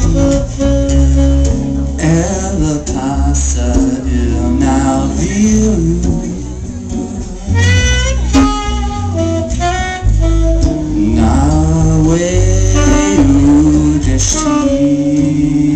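Live band playing a song: a male lead vocal over strummed acoustic guitar, saxophone and drums, with a heavy low end.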